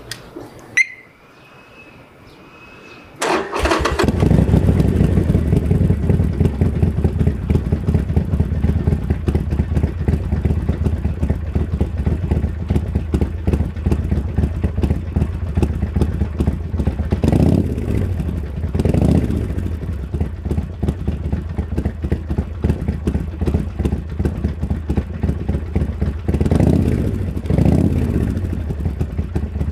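Harley-Davidson Sportster Forty-Eight Special's air-cooled V-twin, breathing through Khrome Werks Tapered 3 slip-on mufflers, started about three seconds in after a click, then idling with an even loping beat. The throttle is blipped twice near the middle and twice again near the end, each blip a quick rise and fall in revs.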